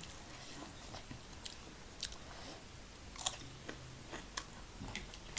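Close-up chewing and biting of crispy fried chicken, with a few scattered small crunches and mouth clicks over a quiet background.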